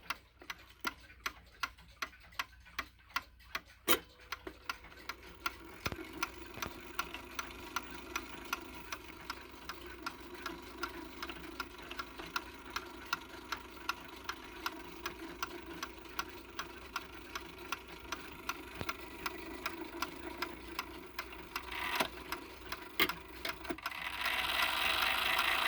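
Waterbury Chime Clock No. 401's three-train, eight-day movement running through its hour sequence with the chime hammers lifted off the rods, so no chime rings and only the mechanism is heard: a steady run of ticking clicks, with a low whir from about six seconds in and a few louder knocks. The mechanism grows louder near the end as the hour strike gets going.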